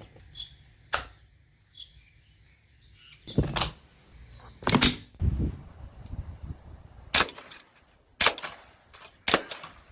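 A few small clicks of .22 rounds being pressed into the rifle's magazine, then two loud clacks as the magazine is seated and the Tippmann M4-22 is loaded. Near the end, three suppressed shots from the .22 LR rifle, about a second apart.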